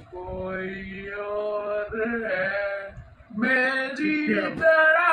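A man singing a slow melody in long, held notes, in about four phrases: a recorded song edited in.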